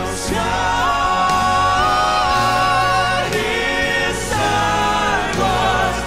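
Southern gospel male vocal quartet singing with instrumental accompaniment: a lead voice holding long notes with vibrato over the group's harmony and steady low backing notes.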